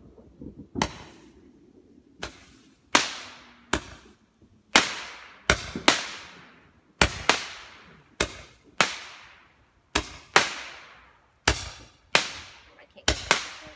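Aerial fireworks firing in a rapid volley of about seventeen sharp bangs, one every half-second to a second. Each bang trails off in a long echoing tail.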